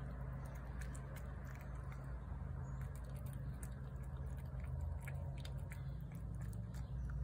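A cat eating wet food off a plate: quick wet chewing and smacking clicks that keep up throughout, over a low steady rumble.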